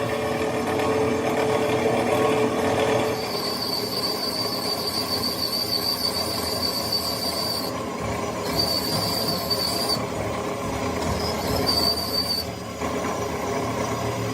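Metalworking tool on an old engine cylinder head, a steady high-pitched squeal over a dense mechanical rumble, breaking off twice.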